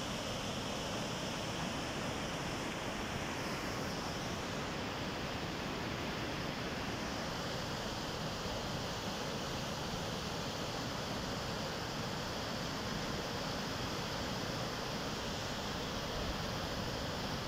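Swollen, muddy river in flood churning and rushing past a concrete bridge: a steady rush of turbulent floodwater with no breaks.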